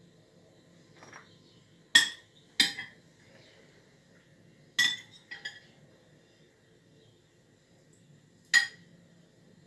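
Metal spoon clinking against a glass bowl of mashed tinned tomato as sauce is scooped out: four sharp clinks, each with a short ring, and a few lighter taps in between.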